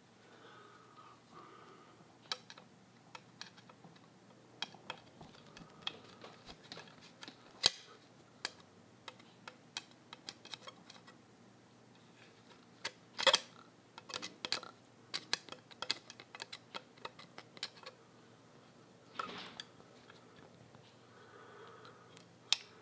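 Small screwdriver turning a slotted screw in a Singer 15-91 bobbin winder's frame, set into the cast-iron machine body: a scatter of faint metal clicks and light scrapes, thickest about halfway through.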